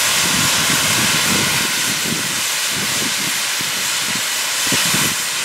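Small industrial steam tank locomotive blowing off steam through its safety valves: a loud, steady hiss, with an uneven low rumble beneath.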